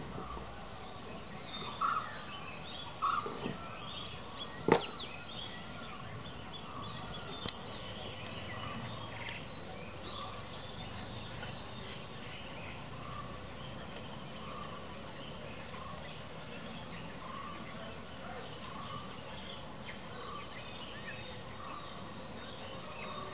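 Steady high-pitched drone of insects with faint repeated chirps. A few short sharp sounds break in during the first eight seconds, the loudest about five seconds in.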